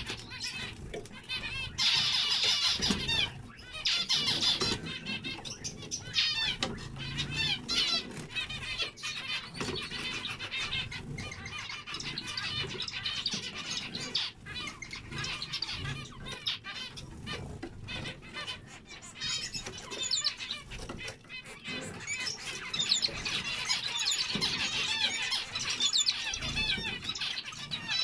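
A flock of zebra finches chattering together: a dense, unbroken stream of short, nasal, wavering calls and song phrases, with wings flapping now and then as birds fly between perches.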